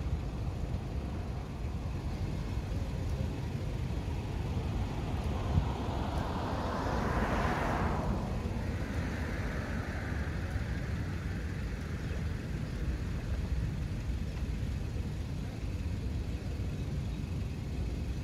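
Steady low outdoor rumble, with a vehicle passing by that swells to its loudest about seven seconds in and falls away quickly.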